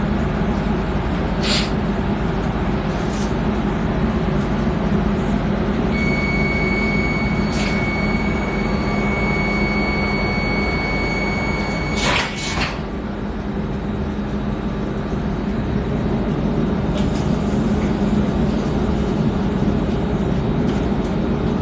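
Running noise of an X10 commuter train: a steady low rumble with a few brief clicks. A steady high whine is held for about six seconds midway and stops with a short hiss about twelve seconds in.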